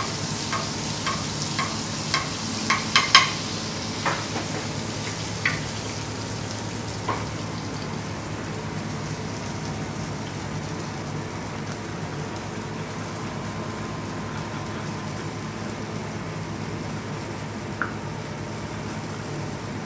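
Butter sizzling in a pan around a beef fillet as a spoon bastes it, the spoon clinking against the pan about twice a second. The clinks and sizzle die away after a few seconds, leaving a steady low hum.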